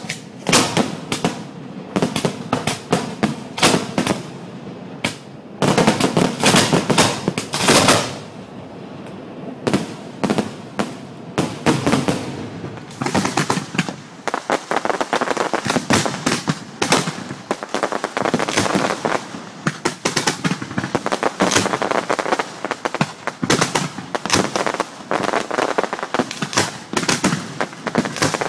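Valencian fireworks going off in rapid succession: a dense barrage of sharp bangs and crackling reports. It is thickest about six to eight seconds in, eases briefly, then runs on as a steady crackle of explosions.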